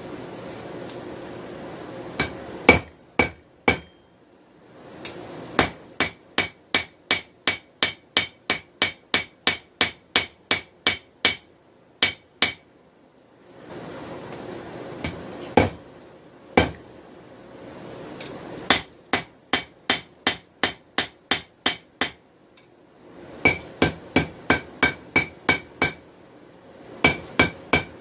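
Hand hammer striking hot 416 stainless steel on an anvil to forge a small knife tip: runs of ringing blows about three a second, with short pauses in which a steady rushing noise is heard.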